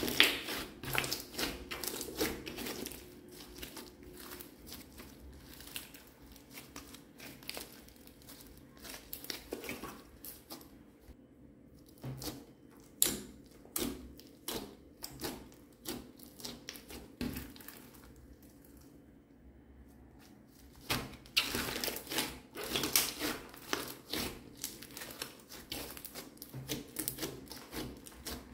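Hands kneading and pressing a thick, glossy red slime with small beads mixed in, making sticky clicks and crackling pops in irregular flurries. There is a short lull about two-thirds of the way through, then a louder, denser flurry.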